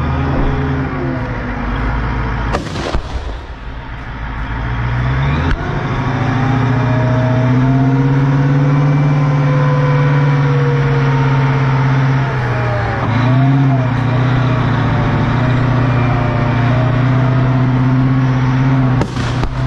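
M2A2 Bradley's diesel engine running, its pitch drifting slowly up and down, with one sharp bang about three seconds in.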